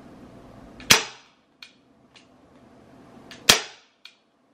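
Smith & Wesson M&P R8 6mm airsoft BB revolver fired twice, about two and a half seconds apart, each a sharp pop with a short ring after it. A few faint clicks come between the shots.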